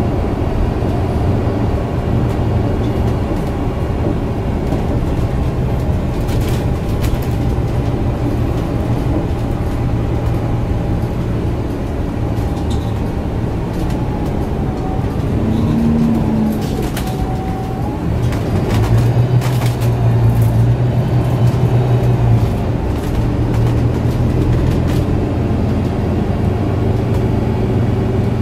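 Inside a moving MAN A69 city bus: its MAN D2066LUH 10.5-litre six-cylinder turbo diesel runs steadily through a Voith DIWA automatic gearbox, with road and cabin noise. The engine note swells louder for a few seconds about two-thirds of the way through, and a few brief clicks come from the cabin.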